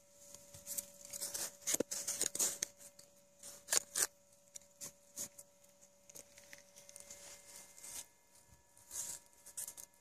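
Soil and roots being scraped away by hand around a buried metal find as it is worked free: irregular scratching and rustling with small sharp clicks, the loudest about four seconds in.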